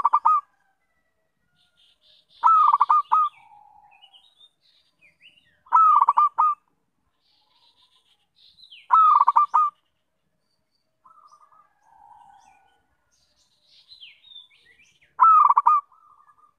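Zebra dove (perkutut) cooing: five short, loud phrases of rapid stuttering coos, about every three seconds, with a longer pause before the last. Faint high chirps of small birds come in between.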